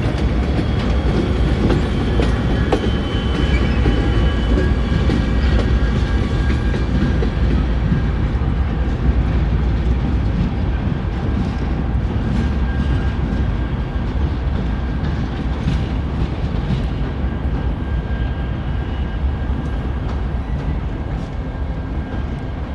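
A freight train's cars rolling past with a steady rumble, the wheels clicking over the rail joints, easing off slightly near the end.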